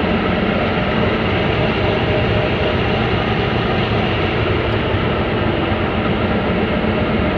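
A diesel-electric locomotive engine idling, heard from inside its cab: a loud, steady drone with no change in speed.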